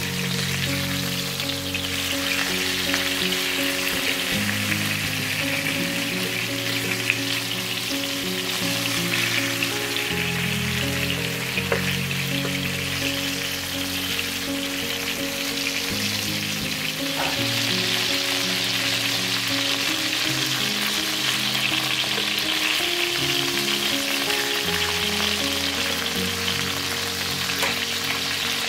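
Flour-dusted chicken breasts sizzling steadily as they fry in oil in a nonstick pan. The sizzle grows a little louder about two-thirds of the way through, with a few brief clicks along the way. Soft background music plays underneath.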